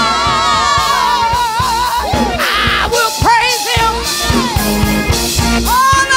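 Gospel praise singing with live band accompaniment. A lead voice holds a long note with wide vibrato, then sings sliding, ornamented runs over a steady drum beat and bass.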